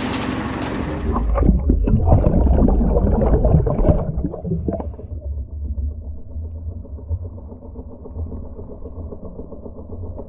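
Sea water splashing and hissing at the surface for about a second, then the sound turns muffled underwater: a rush and crackle of bubbles for a few seconds, settling into a steady low drone of the dive boat's engine heard through the water.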